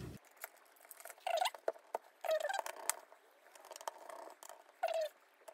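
Small screwdriver driving screws into the aluminium bottom case of a MacBook Air: four short squeaky scrapes with faint clicks between them.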